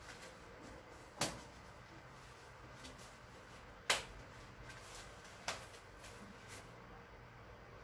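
Handling sounds from a running vest being pulled on and its straps adjusted: three sharp clicks, at about a second, four seconds and five and a half seconds in, with fainter ticks and rustles between.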